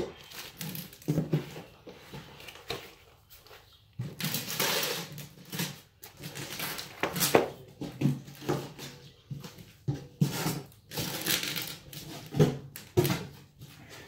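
Plastic wrap crinkling and cardboard and metal rail parts being handled and set down while a garage door opener kit is unpacked. The noise comes in irregular rustles with a few sharp knocks.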